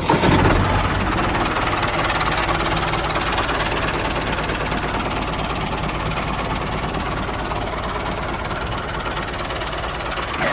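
A small motor running steadily, with a dense, even mechanical noise.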